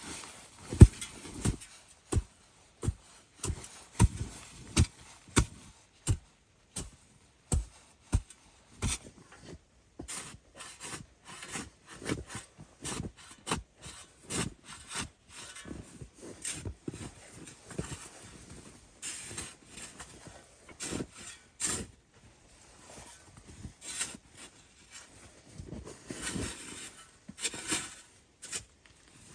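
Footsteps crunching through snow at a steady walking pace for the first several seconds, then irregular scraping and crunching of snow.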